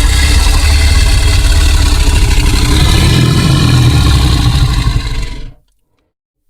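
Monster growl sound effect: one long, deep, rumbling growl that fades out about five and a half seconds in.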